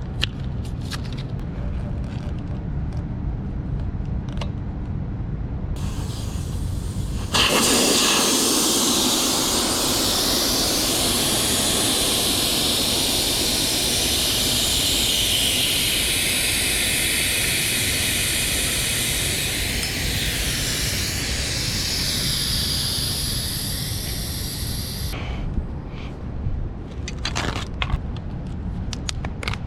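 A loud, steady hiss of rushing air starts abruptly about seven seconds in, lasts about eighteen seconds and cuts off, over a low rumble. Scattered clicks and knocks come before and after it.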